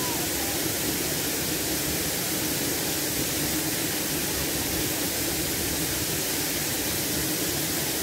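Steady rush of a waterfall pouring over rock into a pool.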